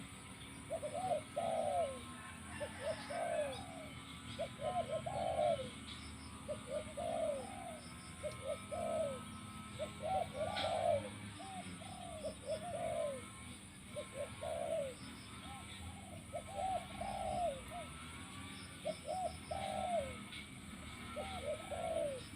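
Spotted dove cooing over and over, short arched coo notes in quick clusters of two or three, repeated throughout.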